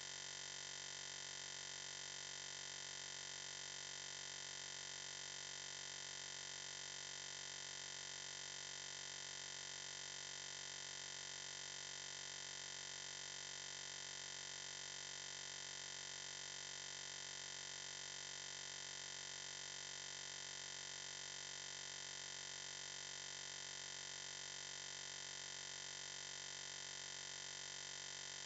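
Faint, steady hiss with a low hum that does not change at all, with no strokes or pulses.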